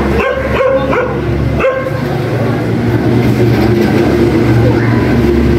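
A dog barking and yelping in short, high calls over a steady low hum.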